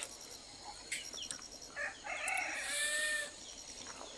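A rooster crowing once, a drawn-out call of about a second and a half starting about two seconds in. A sharp click at the very start.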